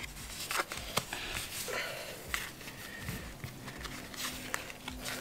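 Trading cards being handled and set down on a playmat: a run of light clicks and rustles from the cards and fingers.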